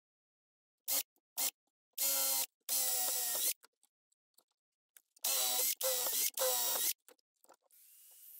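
A power tool's motor run in short trigger bursts: two brief blips, two bursts of about half a second and a second, a pause, then three more in quick succession. Near the end an angle grinder starts and runs with a steady whine.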